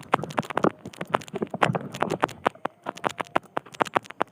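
Footsteps and scrapes on loose rock while climbing a steep slope: irregular sharp knocks and crunches, several a second.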